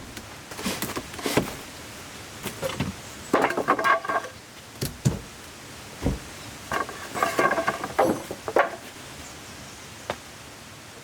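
Irregular knocks and clanks, some of them briefly ringing like metal, in two busier clusters about three and a half and seven seconds in.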